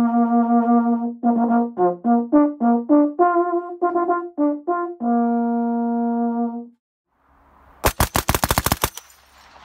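A short brass-instrument tune of held and quick notes, ending on a long low note. After a brief pause, a one-second burst of machine-gun fire comes near the end, about ten shots a second.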